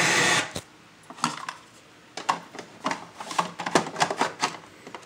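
A loud hiss that cuts off about half a second in, then a series of plastic clicks and knocks as a ROM cartridge is handled and pushed into the cartridge slot of a TRS-80 Color Computer 2.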